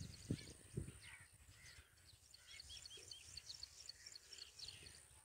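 Faint chorus of small birds: many short chirps and quick falling whistles, overlapping throughout. Two soft low bumps come in the first second.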